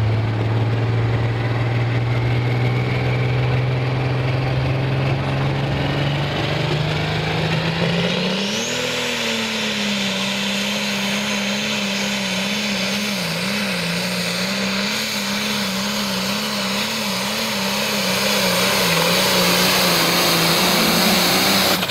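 John Deere super stock pulling tractor engine at full throttle hauling a weight-transfer sled. Its pitch climbs slowly at first, then jumps with a brief high rising whine about eight seconds in. After that it holds at high revs, wavering up and down, as the tractor pulls down the track.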